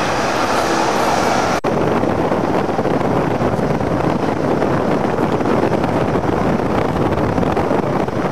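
Steady noise of a car driving along a dirt track, heard from inside the car, with a brief dropout about a second and a half in.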